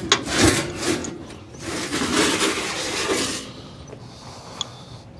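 Two short knocks, then a scraping, rubbing noise lasting about a second and a half: metal parts or clothing being handled close by.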